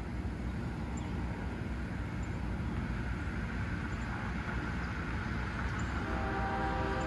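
Low rumble of an EMD GP40-2LW diesel locomotive approaching, slowly growing louder. About six seconds in, a steady chord of several notes begins: the locomotive's horn sounding for the crossing.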